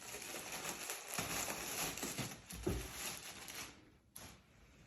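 Crinkling and rustling of a clothing item's packaging being worked open, continuous for about three and a half seconds and then dying down.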